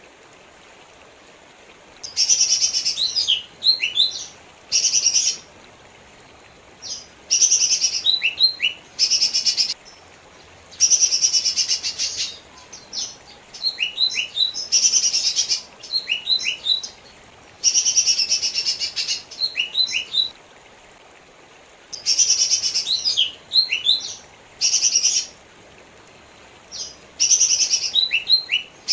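Lesser green leafbird (cucak ijo mini) singing in repeated bursts of a second or two, each a dense, buzzy chatter mixed with quick sweeping whistles, with short pauses between bursts.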